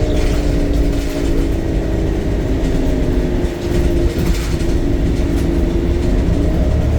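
Temsa Avenue LF city bus's DAF Euro 5 diesel engine and ZF automatic gearbox running under a heavy low rumble. A whine from the driveline slides slowly down in pitch as the bus slows, then begins to rise again near the end.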